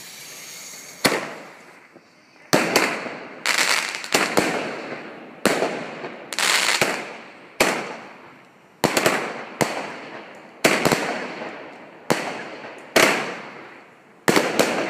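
Rubro 'Panoramic Palms' firework going off in a run of shots, about one a second and sometimes two close together. Each shot is a sharp bang followed by a hiss that fades away.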